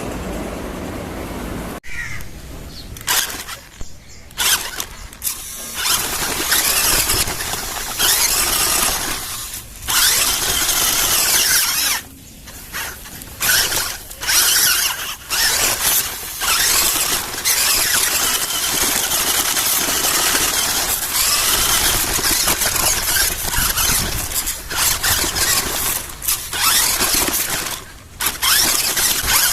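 Electric drive motor and gears of an RC crawler truck whining as it is driven, in stretches broken by short stops as the throttle is let off and applied again.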